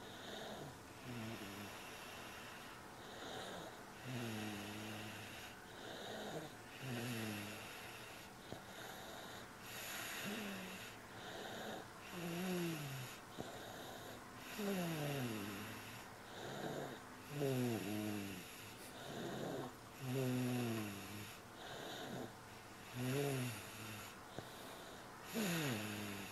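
A sleeper snoring: short pitched snores about every two seconds, each sliding down in pitch, growing louder in the second half.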